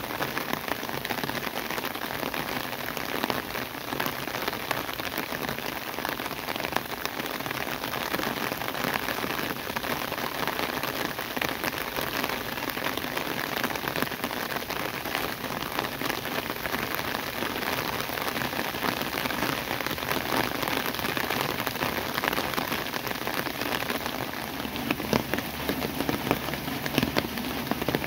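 Steady rain falling on rice paddies and flooded ground, an even hiss throughout. In the last few seconds sharper, louder individual drop impacts stand out.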